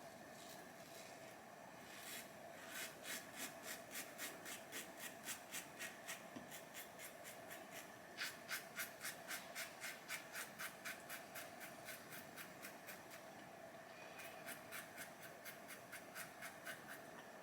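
Karve CB safety razor with a Polsilver Super Iridium blade scraping through lathered stubble in quick short strokes, about three a second, in three runs with brief pauses between them. This is the blade's audible feedback as it cuts. A faint steady hum runs underneath.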